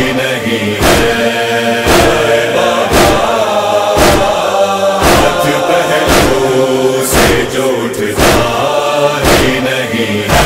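Nauha: voices chanting a drawn-out lamentation melody over the sharp slaps of matam chest-beating, which keep a steady beat about once a second.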